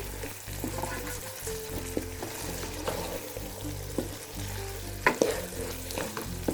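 Potatoes, peas and green chillies frying in oil in a pot, sizzling as a spoon stirs them, with a few sharp clinks and scrapes of the spoon against the pot; the loudest is about five seconds in. Soft music plays underneath.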